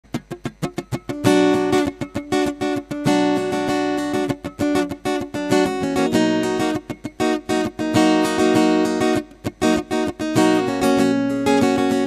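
Harvey HG100 SCE acoustic-electric guitar, solid spruce top with plywood back and sides and phosphor bronze strings, played as a sound test. It opens with a quick run of single plucked notes, then ringing chords with picked notes in between, and another run of single notes about six seconds in.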